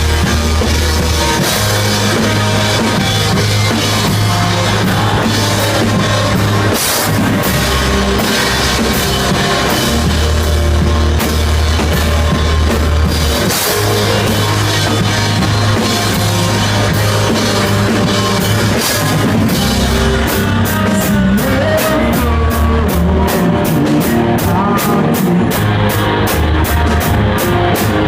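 Rock band playing live, with a drum kit and a steady, heavy low end. In the last several seconds a cymbal is struck about four times a second.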